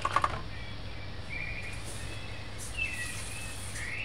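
A few faint, short bird chirps at irregular intervals, one rising near the end, over a steady low hum.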